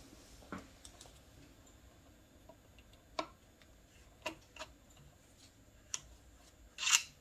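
Screwdriver working the stock screw out of a Rossi 92 lever-action rifle: scattered light ticks and clicks at irregular intervals, with a brief louder scrape near the end.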